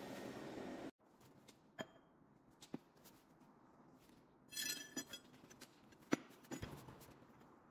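A steady machine hum cuts off abruptly about a second in. A few light metallic clicks and a short ringing clink follow, the sound of metal parts or tools being handled.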